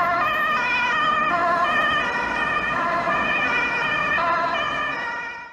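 Ambulance siren sound, a wailing tone with many overtones that shifts up and down in pitch, fading out near the end.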